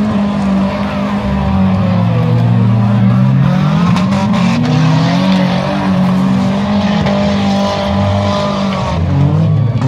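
Several minivan and pickup truck engines revving hard at once, their pitches rising and falling against each other as the vehicles accelerate and slow on a dirt figure-8 track. A few sharp clicks come about four seconds in.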